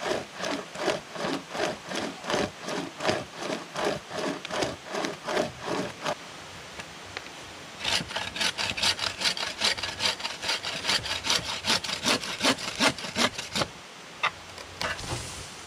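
A wooden-framed bow saw cutting through a log in steady back-and-forth strokes, about two to three a second. It pauses briefly midway, then resumes faster, before a few final strokes near the end.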